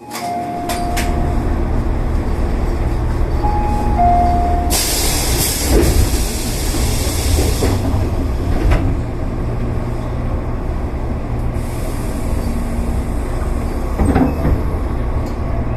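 Tobu 8000-series electric train running, a steady low rumble of wheels and motors on the rails. Two short beeps sound in the first five seconds, and a hiss rises for about three seconds near the middle, with a few sharp clicks scattered through.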